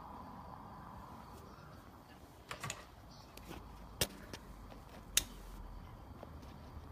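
A few sharp clicks over faint background noise: a small cluster about two and a half seconds in, then two single louder clicks about a second apart.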